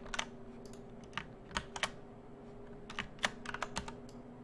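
Irregular clicking of a computer keyboard and mouse, a dozen or so separate clicks with a cluster about three seconds in, over a faint steady hum.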